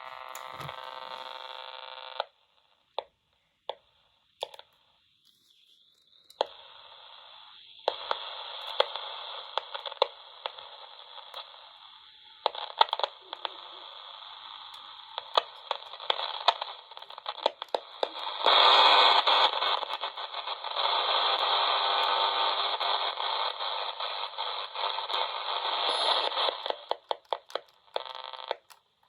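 Grundig Yacht Boy 220 portable radio tuned between stations, giving out static hiss with crackles and clicks. A steady whistling tone sounds for the first two seconds. The static grows louder about two-thirds of the way through.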